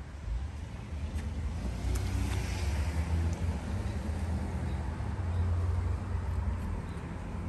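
A low, uneven rumble of outdoor background noise, with a faint hiss swelling a little about two to three seconds in.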